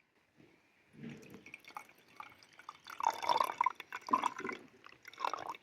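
Coffee being poured, the liquid splashing in uneven spurts, starting about a second in.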